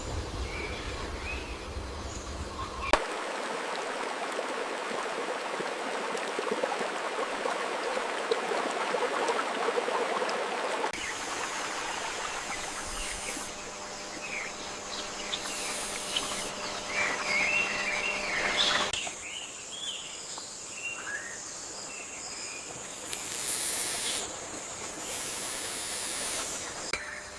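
Rainforest ambience: a steady wash of insect-like noise with scattered bird chirps, the background changing abruptly every several seconds.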